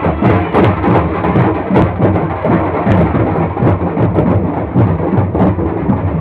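Loud drumming on large two-headed barrel drums: a fast, dense run of deep beats that blurs into a steady rumble.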